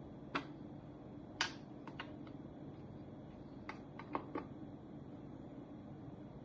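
Scattered light clicks and taps, about eight at irregular intervals, as the taillight and its packaging are handled, over a steady low hum.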